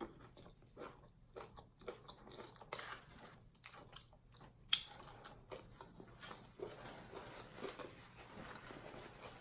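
A person chewing and biting into fried chicken gizzards and fries, close to the microphone. It is a run of irregular, faint wet chewing and crunchy clicks, with one sharper click about halfway through.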